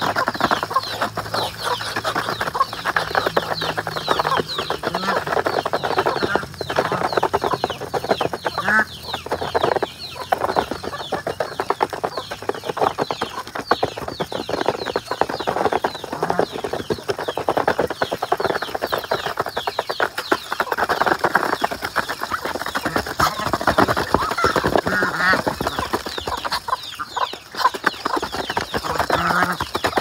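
Farmyard fowl feeding: Muscovy ducks' bills pecking and rattling fast in feed in a plastic tub, a dense run of clicks, with clucking and short calls from the flock.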